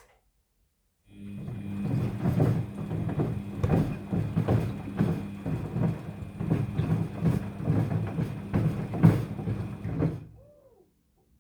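Daewoo DWD-FT10013 washing machine rinsing: about a second in, the drum motor starts with a steady hum, and the load tumbling in the water makes repeated irregular thuds. The drum stops near the end.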